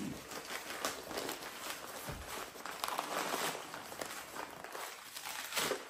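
Crumpled brown packing paper rustling and crackling as it is pulled open by hand, an irregular run of crinkles that thins out near the end.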